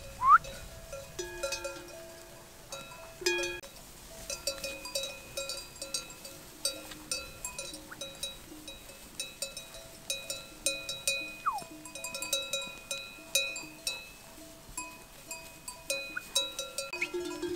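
Many livestock bells on a flock of sheep and goats clinking and clanking irregularly as the animals move, several different pitches overlapping. A short rising call near the start and a short falling call a little past halfway cut through the bells.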